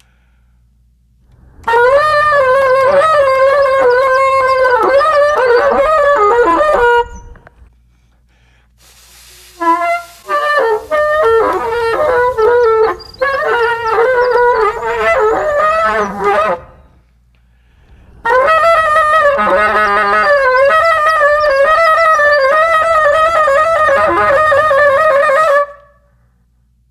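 Bassoon playing three phrases of rapid, warbling, trilling lines high in its range, separated by short pauses, in music modelled on winter wren song.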